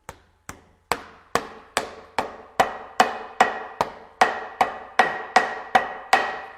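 Hammer blows on the pressed aluminium-foil pan, fixing the handle through a drilled hole. The blows come steadily, about two and a half a second. The first few are light taps, then they get harder, and each gives a short metallic ring.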